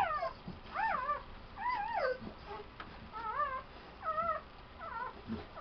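Newborn puppies squealing: a string of short, high-pitched cries that rise and fall in pitch, about one a second.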